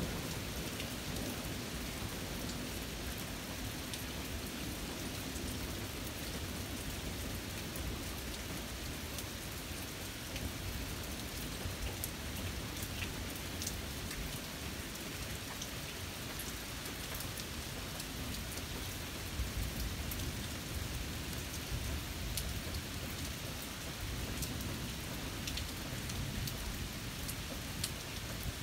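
Steady rain falling, with scattered sharp taps of single drops hitting close by.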